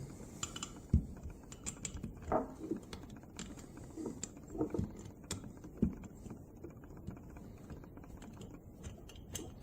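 Irregular light clicks and taps of small hand tools and small metal parts being handled as a miniature model diesel engine is taken apart.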